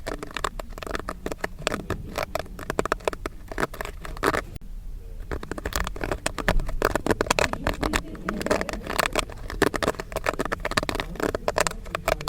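Popcorn kernels popping in rapid, irregular pops, many a second, with a brief lull about four and a half seconds in and busier, louder popping in the second half.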